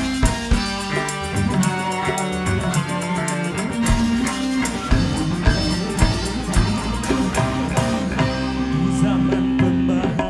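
Live orkes Melayu (dangdut) band playing an instrumental passage, with electric guitar lines over bass and regular drum beats.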